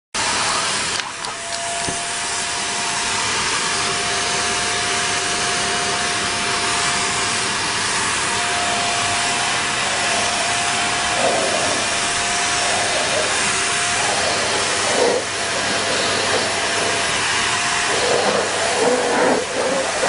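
Vacuum cleaner running: a steady rush of air with a steady whine, its brush nozzle drawn over a cat's fur. The sound wavers a few times in the second half.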